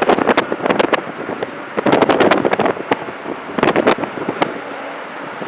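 Wind buffeting the camcorder microphone in irregular gusts and thumps. Beneath it is the steady hum of a Boeing 767-300's jet engines at low taxi power.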